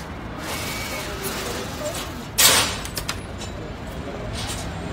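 Steady low street-traffic rumble, with one short, loud burst of hissing noise about halfway through.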